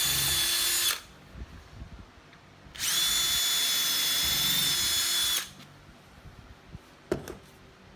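Power drill whining at steady full speed, boring screw holes into the timber of a crosscut sled, in two runs: one ending about a second in and a longer one of about two and a half seconds. A sharp knock near the end.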